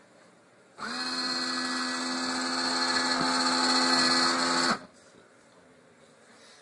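Vending machine's electric dispensing motor running with a steady whine for about four seconds, starting and stopping abruptly: one dispense cycle.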